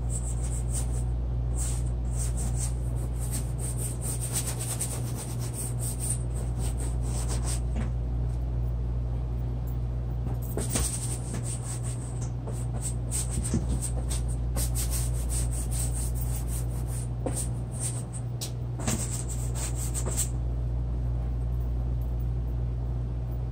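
Quick scratchy strokes of a drawing or painting tool rubbing across a paper or canvas surface. The strokes come in bursts of rapid back-and-forth marks with short pauses between them, over a steady low hum.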